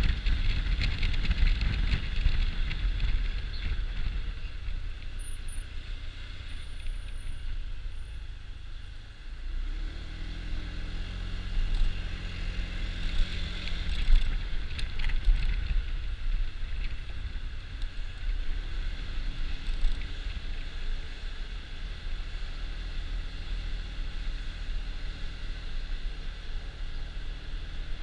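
Honda Dio scooter running on the move, its engine hum mixed with wind and road noise. The engine eases off around eight seconds in and picks up again about a second later.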